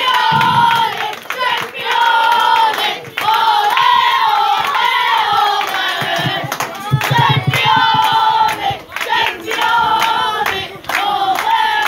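A group of young boys chanting a celebration song together in repeated high-pitched phrases, with scattered claps.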